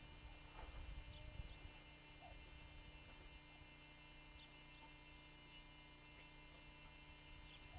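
Near silence: a faint steady electrical hum, with a few faint high bird chirps about a second in, around four seconds in and near the end.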